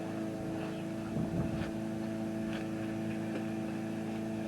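A steady low mechanical hum with several faint clicks over it, and a small knock about a second and a half in.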